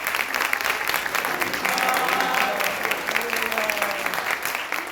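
Audience clapping, a dense patter of many hands, with a few voices calling out over it.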